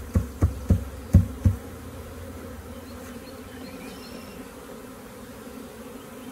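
Five sharp knocks on a wooden swarm-trap box in the first second and a half, tapping the last bees loose, then a steady buzz from the honeybee swarm.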